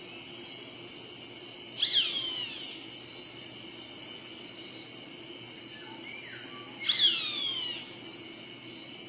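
Bird calls: two loud calls about five seconds apart, each starting sharply and falling in pitch over most of a second, with fainter short chirps from another bird in between, over a steady background hiss.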